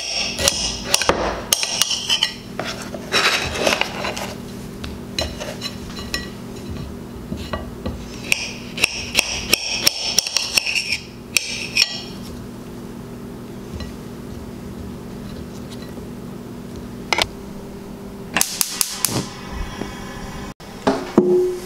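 Kitchen knife cutting potatoes on a cutting board: a run of sharp knocks of the blade on the board, thick in the first half, then a quieter stretch and a few more knocks near the end. A steady low hum runs underneath.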